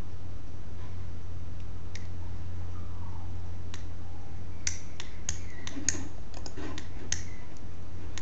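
Computer clicking, sharp and short, about a dozen clicks in quick succession from about halfway through, over a steady low hum.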